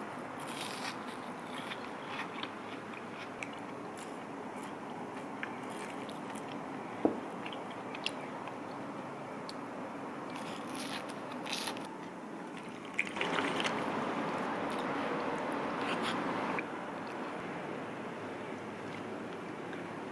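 Meal sounds: bites and chewing on crisp food, with scattered small clicks and one sharp click about seven seconds in. A louder, steady rushing noise runs for about three and a half seconds past the middle.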